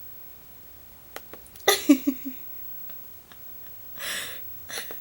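A person hiccuping twice, about three seconds apart. The first, about two seconds in, is the louder and has a short voiced catch; a breath is drawn in just before the second, near the end.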